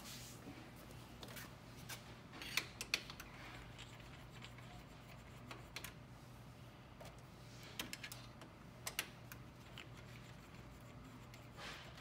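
Light, scattered clicks and ticks of a 5.5 mm hand nut driver turning screws out of a copier's metal frame, with small clusters of sharper clicks about two and a half seconds in and again around eight to nine seconds. A faint steady low hum sits underneath.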